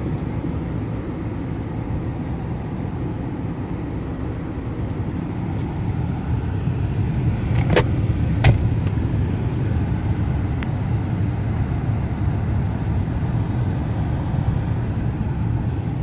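A 2012 Ford F-150's engine idling steadily, heard from inside the cab. A few sharp clicks come about eight seconds in and again near eleven seconds as the glove box is opened and handled.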